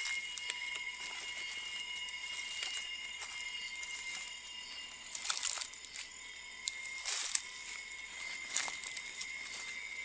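Outdoor ambience: a few steady high-pitched tones underneath, with scattered short rustles and a sharp click about seven seconds in.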